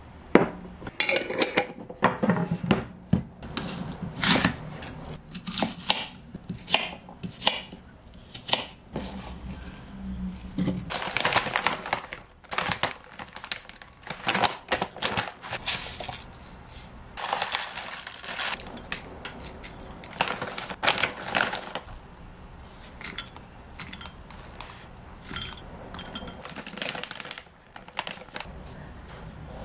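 Food-prep handling sounds: spoons clinking and scraping against a glass bowl and a glass jar of thick Greek yogurt, with stretches of plastic packaging rustling as bags of toppings and granola are handled and spooned into the bowl.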